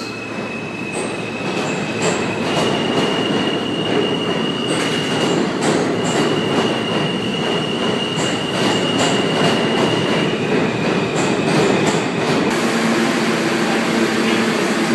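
New York City subway train running through the station, its wheels giving a long high-pitched squeal that breaks off and starts again, with sharp clicks over a steady rumble. Near the end the squeal stops and a steady low hum remains.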